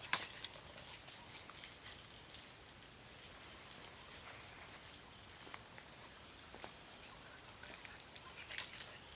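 Forest insects chirring in a steady high-pitched drone, with a few sharp clicks or snaps, the loudest right at the start.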